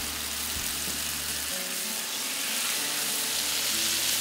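Seasoned fish fillets frying on a hot, oiled flat-top steel griddle, a steady sizzle, with background music.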